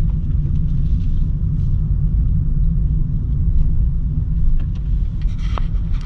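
Steady low rumble of engine and road noise inside a moving vehicle's cabin.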